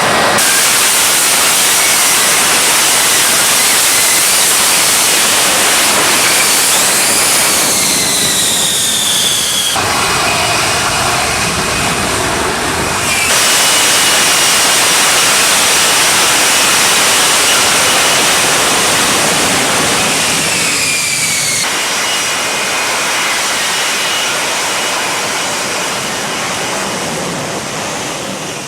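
F-35A Lightning II's Pratt & Whitney F135 afterburning turbofan roaring through a low, loud flyby pass. Twice a whine falls in pitch as the jet goes past, and the roar fades near the end.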